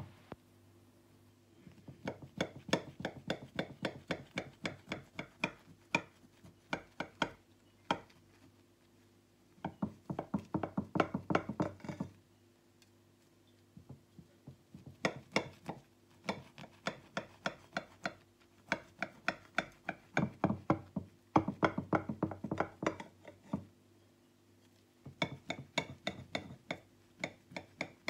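Serrated bread knife sawing through stacked buttered filo sheets layered with crushed nuts, each back-and-forth stroke giving a crisp crackle. The strokes come several a second in runs of a few seconds, with short pauses as the knife is repositioned.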